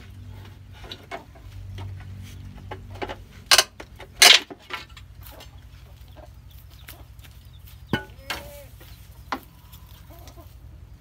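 Chickens clucking, with two loud sharp sounds about three and a half and four seconds in, and another near eight seconds.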